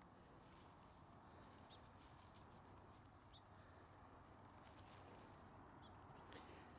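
Near silence: faint outdoor background with a few soft, brief crackles.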